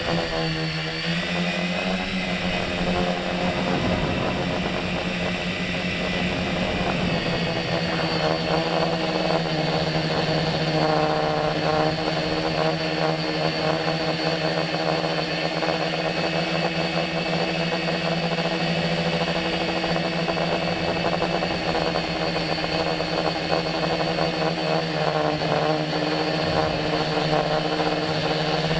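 Brushless electric motors and propellers of a tricopter running in flight: a steady hum of several tones whose pitch changes with the throttle, dipping and climbing back in the first few seconds and shifting again a few times after.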